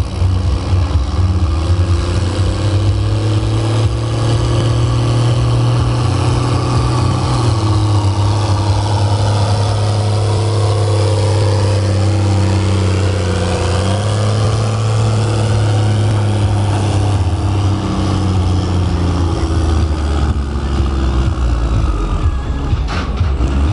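Turbocharged 6.6-litre John Deere tractor diesel running flat out under heavy load while dragging a tractor-pulling weight-transfer sled, a loud, steady drone whose pitch sags and recovers slightly as the load builds.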